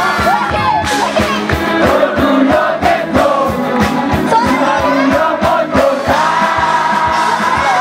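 Live band playing amplified rock music: singing over electric guitars and a steady drum beat.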